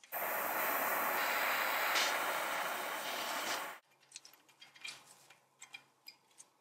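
A loud, steady hiss lasting nearly four seconds that cuts off abruptly, followed by a scatter of small light clicks and ticks as a small rusty toy gear is handled in gloved fingers.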